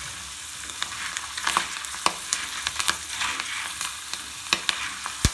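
Dried chickpeas deep-frying in hot oil: a steady sizzle with sharp, irregular pops and crackles as the chickpeas puff up and spatter oil. The loudest pop comes right at the end.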